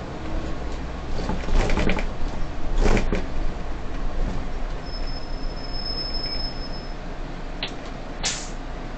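Solaris city bus heard from the driver's cab as the doors close at a stop: a clatter, then a sharp burst of air hiss about three seconds in, over the low running of the engine. A steady high beep sounds for about two seconds, and a click and a short air hiss follow near the end.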